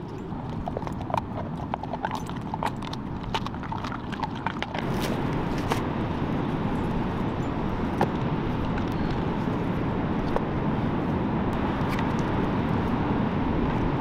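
A dog crunching a hard dog cookie, with quick sharp cracks and clicks. About five seconds in this cuts to a steady rush of wind and surf on the beach, with a few knocks of split firewood being set down.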